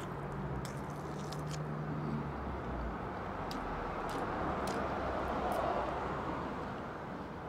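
A person chewing a mouthful of barbecued chicken, with scattered wet mouth clicks, over steady outdoor background noise.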